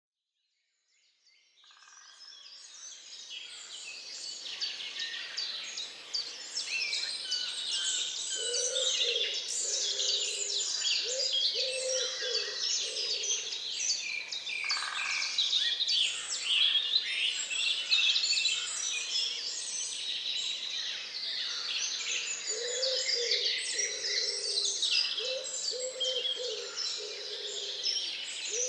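A dawn chorus in a swamp forest: many birds singing and chirping at once in a dense, overlapping mass. It fades in over the first few seconds. Beneath it, a lower-pitched bird call repeats in short phrases, in two runs, one early and one near the end.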